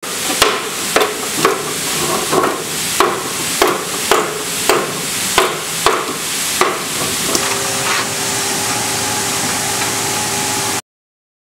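A dozen or so hammer blows, about two a second, as a cooper drives a steel hoop down over oak barrel staves. They are followed by a steady machine hum that starts after about seven seconds and stops abruptly near the end.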